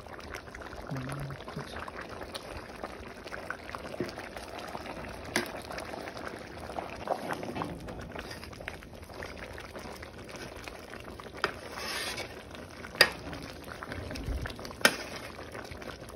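Pot of chicken biryani rice boiling in spiced stock, a steady bubbling hiss, with a few sharp clinks of a metal slotted spoon against the pot.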